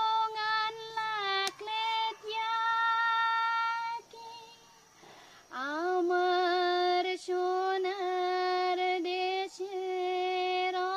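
A woman singing a Bengali song unaccompanied, holding long notes, in two phrases with a pause for breath about four seconds in.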